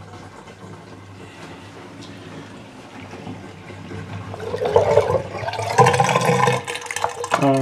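Water splashing and gurgling through a small homemade plastic model toilet and into a sink. It is faint at first and grows louder about four and a half seconds in, as the water runs through the trapway.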